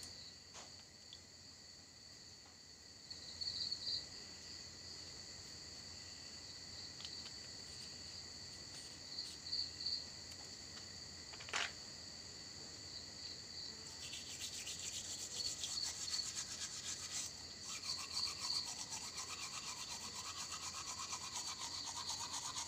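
Crickets chirping steadily in the background, with a few light clicks. A little past the middle, a toothbrush starts scrubbing fast against teeth and keeps going.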